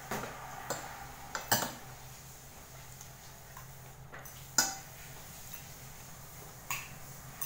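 Kitchen dishes and cutlery clinking: a few separate sharp clinks, the loudest about a second and a half in and about four and a half seconds in, over a steady low hum.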